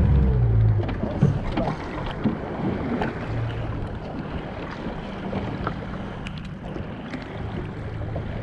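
Wind buffeting the microphone over the sound of choppy sea water slapping against a small boat's hull, loudest with a low rumble in the first second, then steady.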